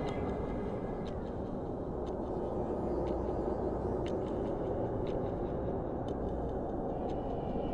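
Steady low rushing outdoor background noise, with a few faint clicks.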